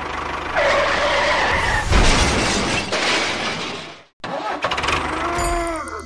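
Steady vehicle-like running noise, with a higher whine over it from about half a second in. It cuts off abruptly about four seconds in, then returns with a few short falling whistle-like tones near the end.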